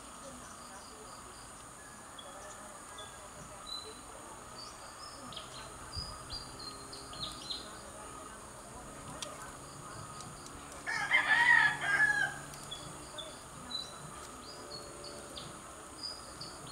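A rooster crows once, about eleven seconds in, a call of about a second and a half and the loudest sound here. Short high bird chirps come and go throughout over a steady high hiss.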